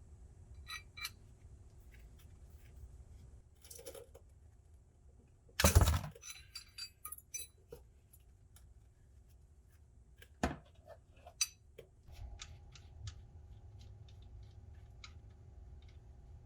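Metal hand tools clinking and clanking as a ratchet, socket and wrench work an engine oil drain plug loose, with one loud clank about six seconds in and a run of quick light clicks near the end.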